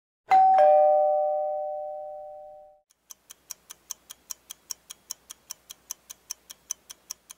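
Intro sound effect: a two-note descending chime (ding-dong) that rings out and fades over about two and a half seconds, then fast, even ticking at about five ticks a second.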